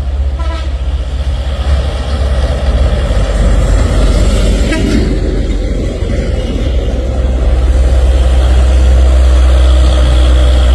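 Diesel engine of a Hino truck running under load as it pulls a loaded low-bed trailer toward and past the camera, with a deep steady rumble that grows louder over the first several seconds and then holds.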